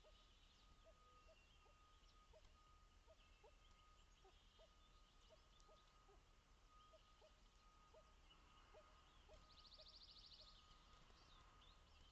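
Near silence: faint outdoor wetland ambience of many short, soft, rising calls repeating irregularly, with a brief high trill about nine and a half seconds in and a faint steady tone underneath.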